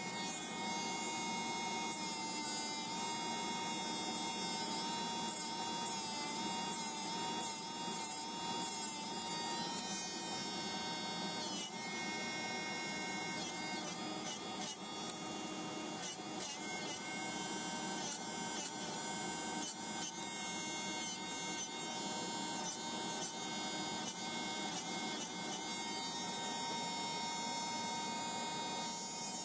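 Electric nail file spinning a rounded-top milling bit, grinding gel off fingernails. A steady motor whine that wavers and dips in pitch as the bit is pressed against the nail.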